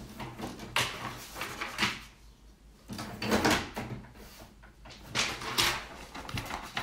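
Sheets of paper rustling and the lid of a Canon inkjet all-in-one printer-scanner being lifted and shut, in several short separate bursts.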